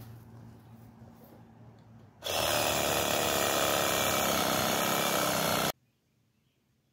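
Chainsaw running at high revs for about three and a half seconds, starting and cutting off abruptly, after a faint low hum that fades out.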